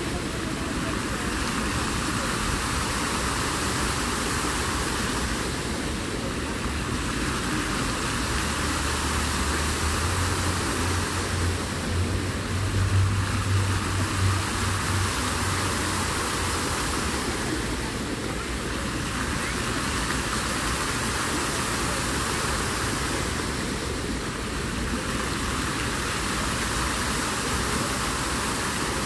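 Dancing fountain's water jets splashing into the pool: a steady rushing that eases briefly about every six seconds, with a low rumble swelling in the middle.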